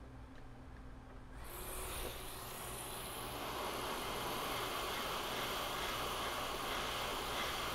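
Hot air rework station blowing onto a Samsung GDDR6 memory chip on a graphics card board, heating it to reflow the solder under the replacement chip. A steady airy hiss starts about a second and a half in and builds over the next second, then holds.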